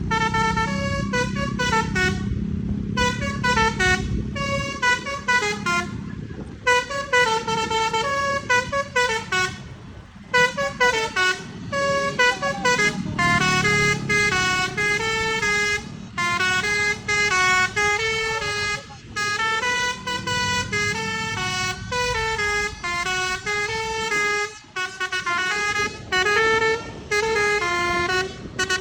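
A coach's telolet horn, a multi-tone musical air horn, playing a long melody of stepping notes with a few short gaps. A low engine rumble sits underneath at the start and again around the middle.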